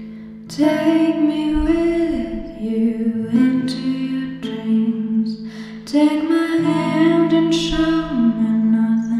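A woman singing a slow, dreamy melody over held chords, coming in about half a second in, from a self-written and self-recorded pop song demo.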